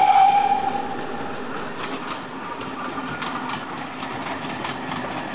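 A steam train's whistle, one held note that fades out about a second and a half in. Then the train rolls along the track with a steady rumble and the clickety-clack of wheels passing over rail joints.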